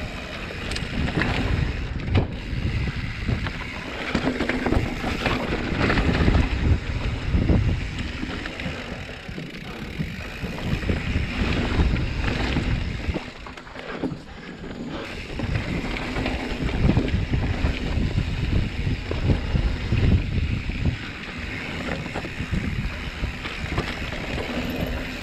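Mountain bike riding dirt singletrack: wind buffeting the camera microphone over the rumble of knobby tyres on dirt, with the odd sharp knock as the bike hits bumps.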